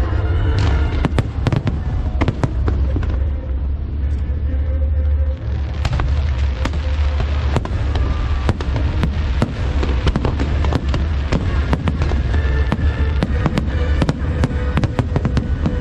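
Aerial fireworks going off in quick, irregular succession, several sharp cracks and bangs a second with a brief lull in the middle, over a deep rumble and show music.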